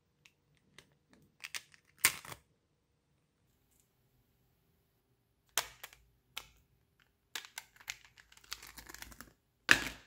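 Small neodymium magnetic balls clicking and snapping against each other as a panel of them is pressed onto a magnet-ball sculpture, with a sheet of paper rustling against them. The clicks are sharp and irregular, with a loud one about two seconds in, a quick run of them late on, and the loudest near the end.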